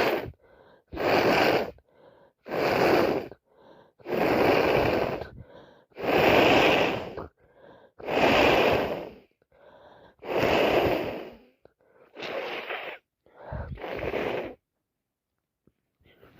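A woman with a heavy cold breathing hard and wheezily, with about nine loud breaths roughly every two seconds, then a pause near the end.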